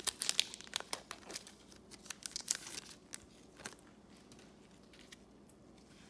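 Trading card pack wrapper crinkling and being torn open, with cards handled: a quick run of sharp crackles and rustles over the first three seconds, thinning to a few faint ones, then quiet.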